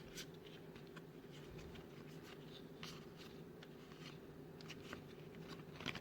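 Faint handling of trading cards: soft scrapes and light ticks as cards are slid and flipped past one another, over a steady low hum.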